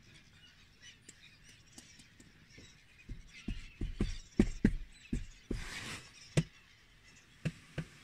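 A large flock of gulls, mostly black-headed gulls, calling faintly. From about three seconds in, a run of sharp low thumps cuts across it, the loudest sounds here, with a short rush of noise in the middle.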